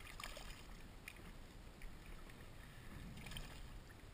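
Faint splashing of a hooked fish thrashing at the sea surface beside a kayak, with water lapping at the hull over a low rumble. A few soft splashes stand out near the start, about a second in and just after three seconds.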